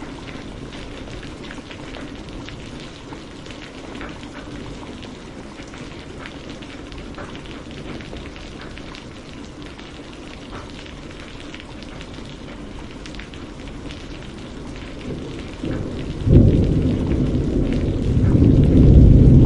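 Steady rain with many individual drops ticking on a surface. About sixteen seconds in, a loud low rumble of thunder rolls in and keeps on.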